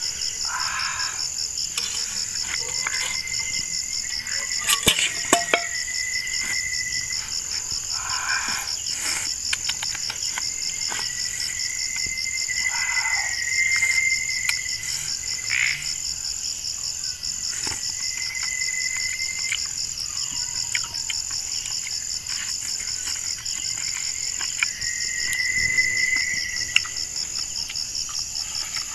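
Night chorus of crickets and frogs: a steady, rapidly pulsing high trill throughout, with shorter calls that come and go every few seconds. Scattered short clicks sit on top, loudest about five seconds in.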